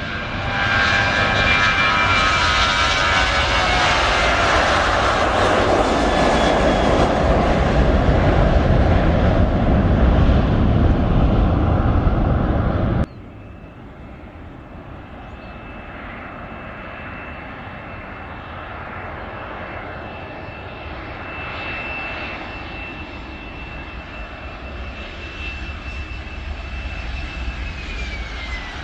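Airliner engines passing close, loud, with a high whine falling in pitch as the aircraft goes by. About 13 s in, the sound cuts abruptly to quieter, steady aircraft engine noise with a high whine that drops in pitch near the end.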